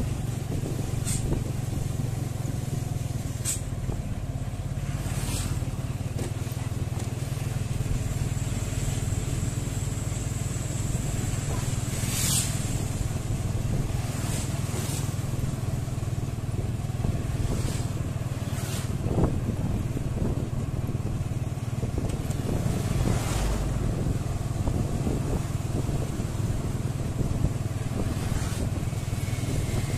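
Steady engine drone with road and wind noise, heard while riding along behind a loaded sand truck, with brief sharp knocks every few seconds.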